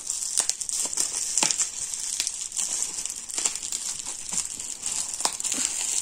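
Plastic bubble wrap crinkling and crackling with irregular sharp clicks as hands squeeze and work at a tightly wrapped item to get it open.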